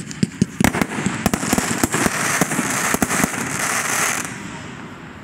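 Fireworks going off: a quick series of sharp bangs, then dense crackling from a glittering burst that fades out just after four seconds in.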